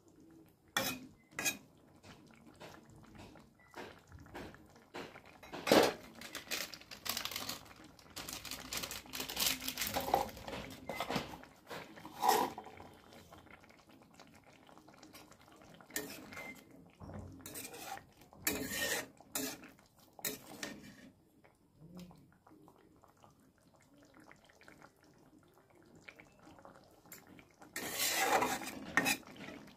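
Kitchen utensils clinking, knocking and scraping against metal pots and dishes in irregular bursts. The sharpest knocks come about six and twelve seconds in, with a longer run of clatter near the end.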